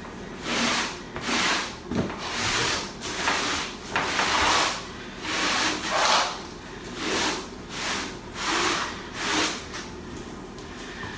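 Repeated rubbing strokes of a sponge wiping excess thinset mortar off an uncoupling membrane, about one swish a second, stopping near the end.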